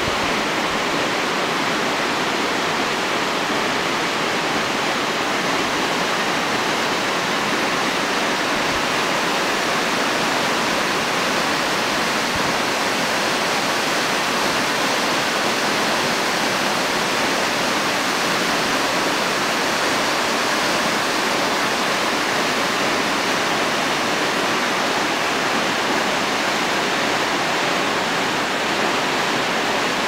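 Waterfall: a steady, unbroken rush of water falling onto rock and into its pool.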